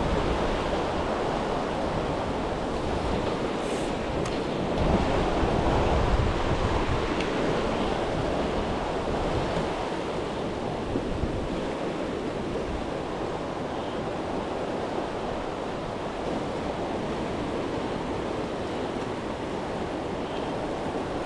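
Steady rushing of water, like waves washing in, with wind buffeting the microphone; a little louder for the first several seconds.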